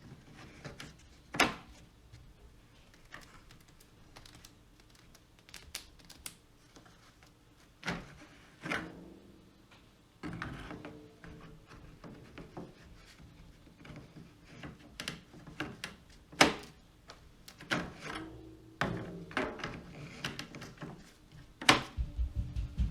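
Irregular thuds and knocks from the neighbours' flat upstairs, a dozen or so separate impacts with quiet gaps between them.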